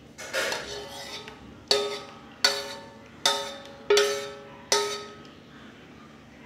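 Metal cooking pan knocked six times, about once every three-quarters of a second, each knock ringing and fading like a small bell. This is the pan being tapped to empty the last of the thick cooled custard out of it.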